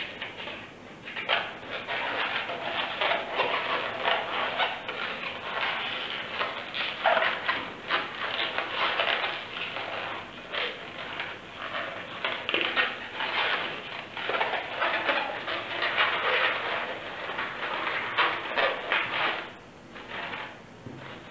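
Latex 160 modelling balloon squeaking and rubbing in irregular bursts as it is twisted into bubbles by hand; the squeaking dies down near the end.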